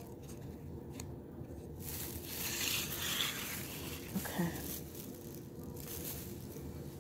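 Plastic crinkling and rustling for about two seconds, a couple of seconds in, as a plastic-covered hand sets a plastic dessert cup down on the table.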